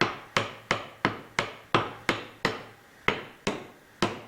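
Hammer tapping at an even pace, about three strikes a second, about a dozen in all, driving a bearing onto a roller shaft. The taps stop shortly before the end.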